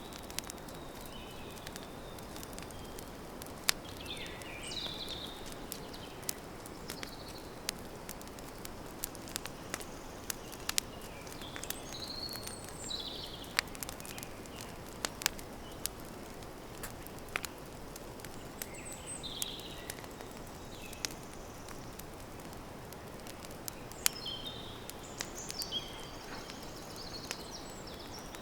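Campfire crackling, with sharp irregular pops over a steady hiss. Short bird chirps come in several times, around 4, 12, 19 and 24 to 28 seconds in.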